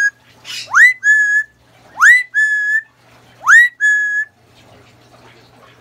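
Yellow-naped Amazon parrot whistling the same two-part phrase over and over: a quick upward swoop followed by a short held note. It repeats about three times, then stops a little over four seconds in.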